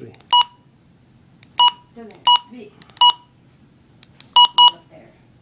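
Key-press beeps from a Midland HH54VP2 weather radio as its buttons are pressed to set the clock: six short, high beeps at irregular intervals, two of them in quick succession near the end.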